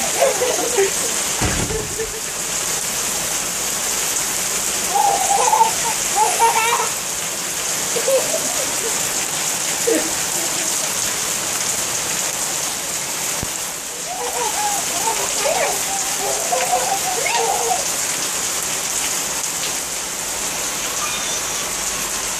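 Steady rain pouring down and splashing onto a wet paved driveway, a constant hiss.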